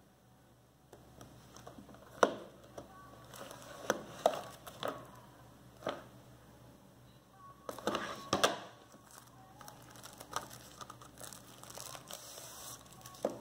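Cellophane shrink-wrap on a CD case crinkling and tearing as it is handled and peeled off, in irregular crackles with a few sharp, loud snaps.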